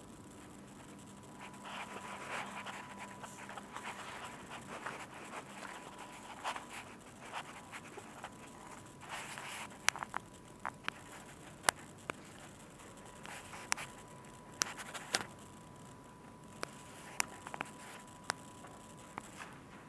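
Scraping and rustling, then scattered sharp clicks and taps, over a faint steady high tone.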